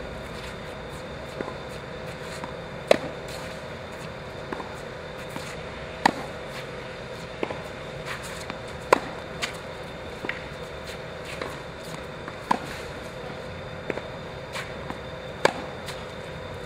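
Tennis ball struck by a racket in a baseline rally on a hard court: five loud, sharp hits about three seconds apart, with fainter bounces and more distant hits between them, over a steady background hum.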